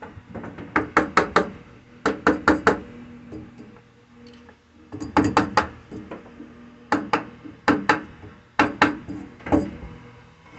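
Mallet striking a spalted birch bowl blank held on a stopped wood lathe, knocking loose bark off. The sharp knocks come in quick runs of two to four, repeated every second or two.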